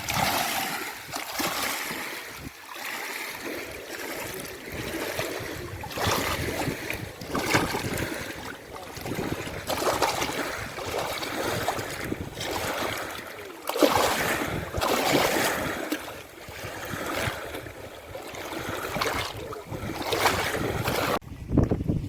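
Lake water splashing in repeated surges, about one every two seconds, with wind buffeting the microphone.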